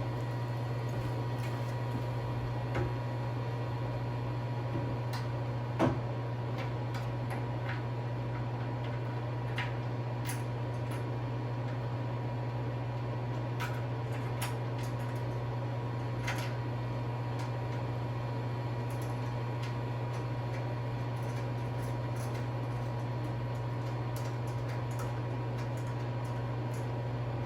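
Steady low hum throughout, with scattered light clicks and taps of metal hardware being handled, and a sharper knock about six seconds in.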